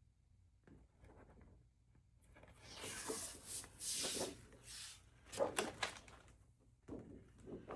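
Craft materials being handled on a tabletop: a few seconds of rustling and scraping, then several light taps and knocks as foam-board shelf pieces are fitted into the box.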